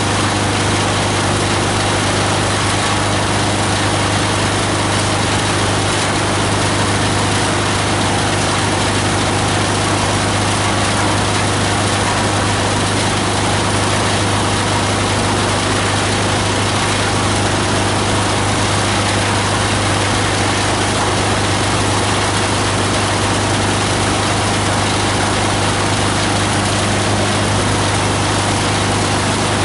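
An 18 HP diesel engine driving a plastic grinder, running steadily with a strong low hum.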